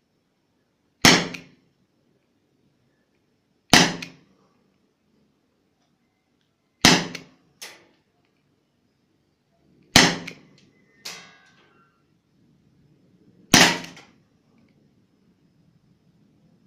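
KWC Python 357 CO2 airgun revolver firing 4.5 mm BBs: five sharp shots, about three seconds apart. A fainter knock follows shortly after the third and fourth shots.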